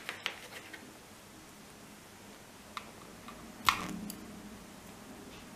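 Light clicks and handling noise from working a crochet hook and cotton yarn, with one sharper snip a little past halfway as the yarn is cut with scissors.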